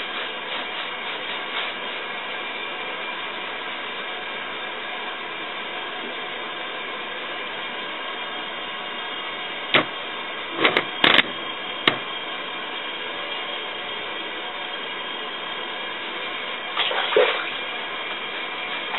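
A dog being washed in a filled bathtub: a few short sharp splashes and knocks about halfway through and a brief splashy burst near the end, over a steady hiss.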